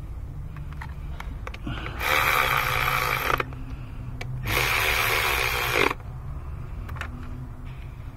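Cordless electric ratchet running in two bursts of about a second and a half each, driving a bolt on top of the engine, with a few light clicks of tools and parts between.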